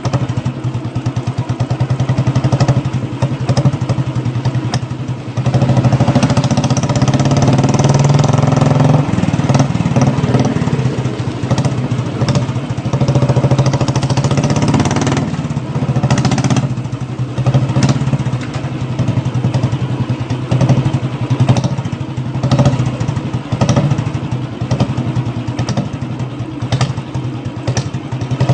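Royal Enfield Bullet motorcycle's single-cylinder engine running with a steady, rapid beat. It is revved up about a quarter of the way in and again about halfway through, then settles back.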